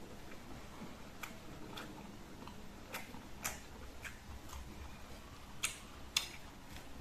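Mouth sounds of chewing food: soft, irregular wet clicks and smacks, with two louder smacks near the end.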